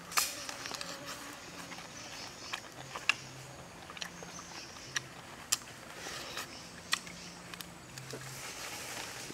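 Person eating grilled chicken by hand: irregular sharp clicks and crunches from chewing and pulling meat off the bone. The loudest click comes just at the start.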